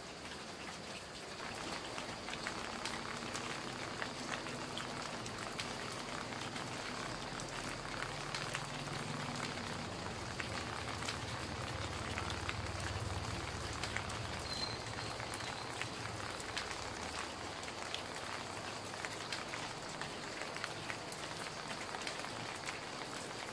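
Steady rain pattering, a dense run of small drop ticks. A low hum swells in the middle and fades away.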